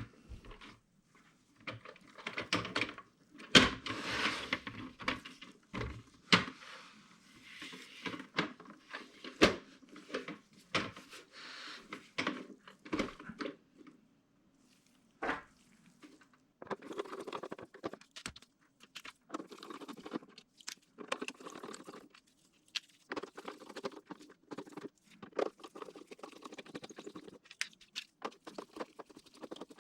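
Hands taking apart a plastic Camtono prop: irregular clicks, knocks and scraping of plastic parts, with the loudest knock about three and a half seconds in and a short pause around the middle.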